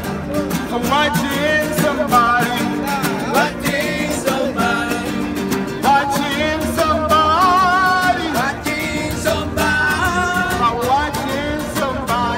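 Acoustic guitars strummed in a quick, steady rhythm, with a man's voice singing a melody over them.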